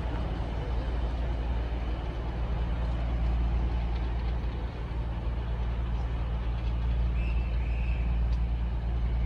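Diesel locomotive engine running steadily at a station, a deep, even hum.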